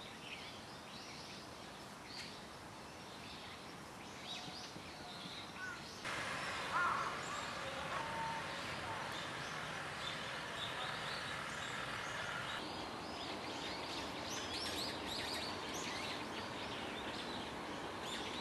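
Outdoor ambience: a steady background hiss with small birds chirping now and then, the chirping busiest near the end. There is a brief louder sound about seven seconds in, and the background level jumps abruptly twice.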